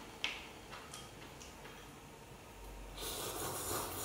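A few faint clicks of chopsticks against bowls, then, about three seconds in, a drawn-out, rising slurp as hot broth is sipped from a bowl.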